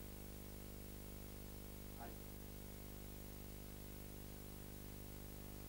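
Steady electrical hum with hiss, the background noise of an old recording of a television broadcast, with one brief faint sound about two seconds in.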